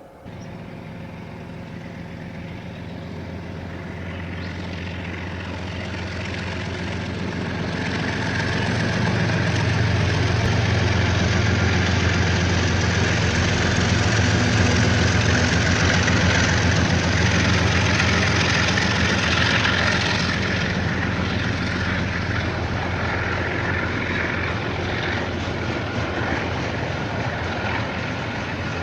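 KiwiRail diesel train passing. A low engine drone with rail noise builds over the first ten seconds, stays loud for about ten seconds, then eases a little.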